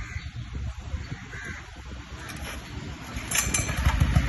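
Crows cawing a few times, then near the end the petrol welding generator is started: a short burst of noise and its engine beginning to run.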